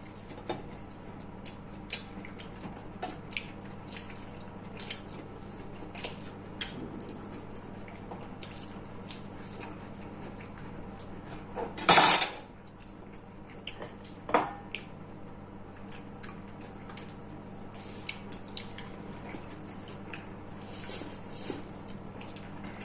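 Cutlery and dishes clinking lightly and sporadically during a meal, scattered small clicks over a low steady hum. One louder brief clatter about halfway through.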